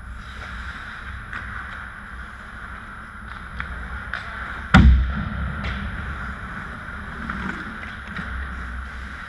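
Ice hockey play heard from beside the goal: skate blades scraping and sticks clicking on the ice over a steady background hum. About five seconds in comes one loud, hard hit with a low ringing tail, a puck shot striking close to the net.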